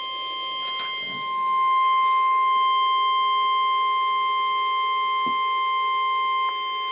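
NOAA Weather Radio alert tone coming through a weather radio receiver's speaker: one steady high-pitched tone, the 1050 Hz warning alarm tone. It gets louder a little over a second in and dips slightly near the end.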